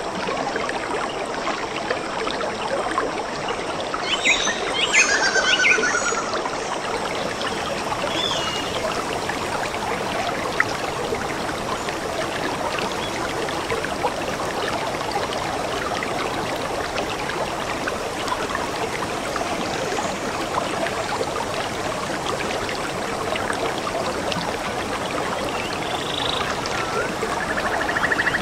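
A stream running steadily, its water trickling and splashing throughout. A bird calls a few times over it: a cluster of calls about four seconds in, a short one a little later, and a rising trill near the end.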